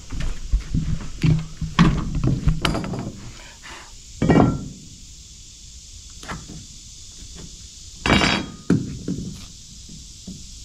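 Scattered knocks and taps of a hammer and framing tools against 2x4 lumber and an OSB subfloor, densest in the first three seconds, with a single thud about four seconds in and a short rattle about eight seconds in.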